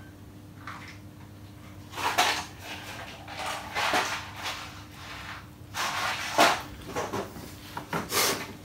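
Several short scraping and knocking sounds of wood and tools being handled on a workbench, the sharpest about two-thirds of the way in.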